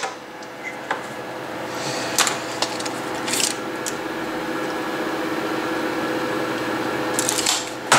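Small electric motor of a bowstring serving machine running steadily, winding serving thread onto the string. It starts about two seconds in, with a couple of short rasps near the start.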